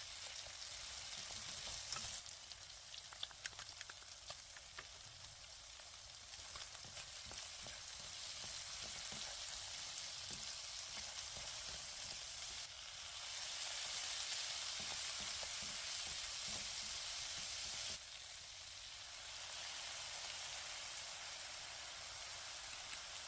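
Food sizzling in oil in a frying pan, with light clicks of a utensil stirring between about 2 and 7 seconds in. The sizzle turns louder about 13 seconds in and drops back abruptly about 18 seconds in.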